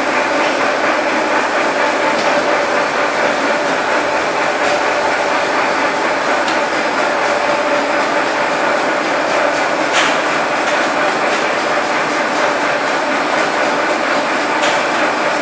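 Polypropylene filament production line running: a steady mechanical din with a constant hum from its motors and roller stands. A few sharp clicks break through, the clearest about ten seconds in.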